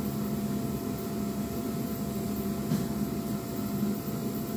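Steady mechanical drone of a garage heater running, with one faint click a little past halfway.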